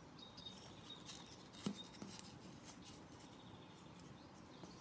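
Faint rustling and light clicks of cardboard tube rings being pinched and shifted on a sheet of paper, with a sharper tap about a second and a half in.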